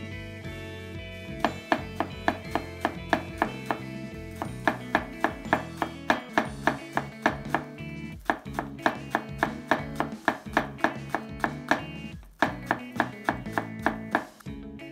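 Kitchen knife chopping green onions on a bamboo cutting board: sharp, regular knocks about three to four a second, starting about a second and a half in and pausing briefly twice, over background music.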